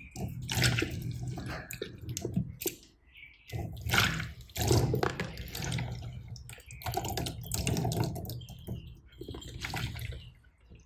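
Slime being squished and mixed by hand: wet, sticky squelching and popping in irregular bursts with short pauses between them.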